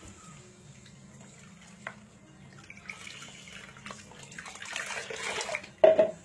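Water pouring and splashing while a cat is bathed, faint at first and building up over the second half, with a sharp knock just before the end.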